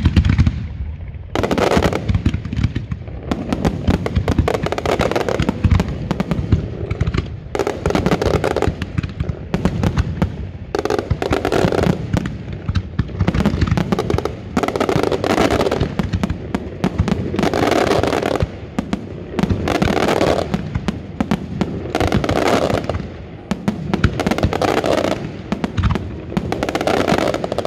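Aerial firework shells and multi-shot cakes bursting in rapid, overlapping volleys, with a dense crackle of many small reports. Louder salvos come every second or two.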